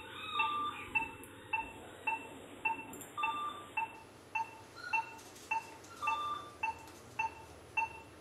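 Operating-room patient monitor beeping steadily, short electronic beeps about two a second in time with the dog's pulse, with a few higher-pitched beeps mixed in.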